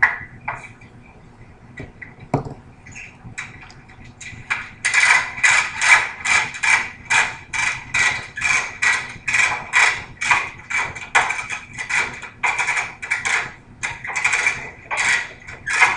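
Ratchet strap on a twin steel vending-machine dolly set being cranked tight by hand. A few scattered clicks come first, then from about five seconds in a steady run of ratchet clicks at about two to three strokes a second, drawing the strap tight around the machine.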